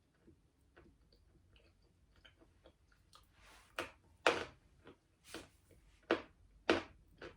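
A lump of 'Barsuk' natural edible chalk being bitten and chewed. Quiet chewing clicks at first, then a run of sharp crunches from about four seconds in, each roughly half a second to a second apart.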